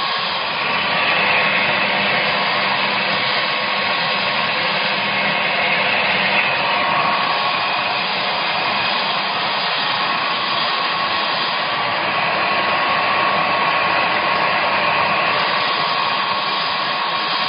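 Samosa-making machine running steadily, a constant motor whir with a faint steady whine, as it forms samosas.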